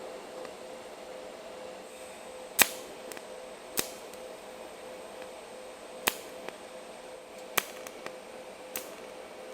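TIG welder striking a series of brief tack welds on thin sheet-metal trunk-lid patch panel: five sharp snaps a second or more apart, with a few fainter ticks between them, over a steady hum.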